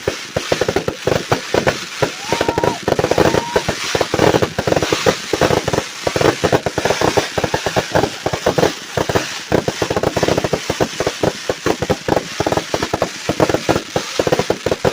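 Fireworks going off in rapid, unbroken succession: a dense barrage of sharp pops and bangs, several a second, with crackling between them.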